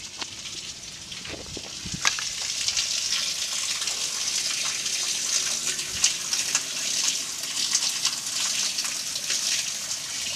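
Water pouring from a PVC drain pipe outlet and splashing into a brick storm water basin as the new drain line is tested with running water. A steady, crackling hiss that grows louder over the first two seconds, then holds.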